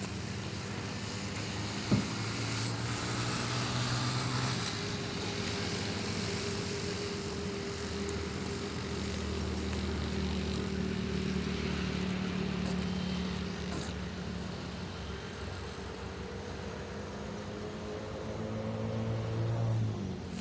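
Steady hum of a running engine, its pitch drifting slowly, over a haze of outdoor noise. A single sharp knock about two seconds in.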